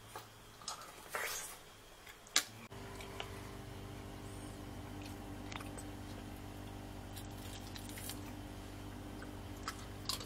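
Spoon clicks and chewing of a mouthful of the creamy prawn and egg salad. About three seconds in, the sound cuts to a steady refrigerator hum with a few light clicks.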